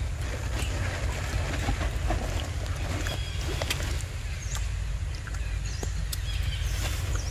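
Steady low rumble of wind on the microphone. Over it come scattered sharp clicks and a few brief high chirps.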